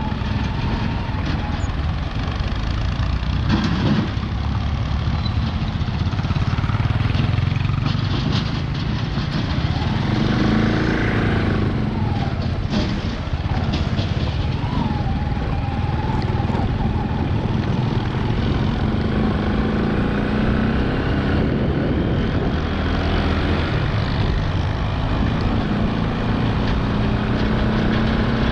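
Steady motor-vehicle engine and road noise, with engine tones rising and falling as vehicles pass or change speed.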